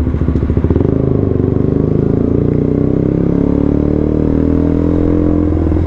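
KTM Duke 125's single-cylinder engine running through an aftermarket Akrapovic exhaust with a decat link. It pulses at low revs for about the first second, then rises slowly and steadily in pitch as the bike accelerates.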